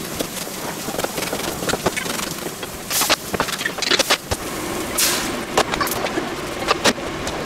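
Kitchen knife chopping on a plastic cutting board: a run of quick, uneven taps, with a louder clatter about three seconds in as the knife is set down. From about five seconds in, a steady hiss from pans cooking on the stove, with food being stirred in a wok.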